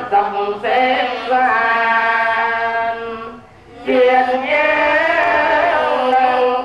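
Theravada Buddhist monks chanting in Pali together, in long held tones. There is a short break just after the middle, then the chant picks up again.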